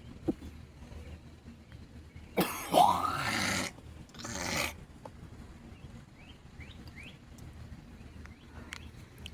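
A woman coughing: one long harsh cough about two and a half seconds in, then a shorter cough about a second later. Small birds chirp in short rising notes in the background.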